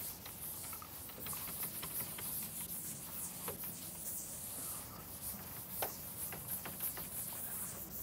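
Chalkboard eraser wiped across a chalkboard in repeated strokes: a soft brushing hiss that swells and fades with each stroke, with a few light knocks.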